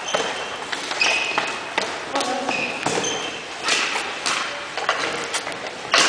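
Floor hockey sticks and ball knocking and clacking on a hard gym floor, scattered irregular hits that echo in the hall, the loudest right at the end.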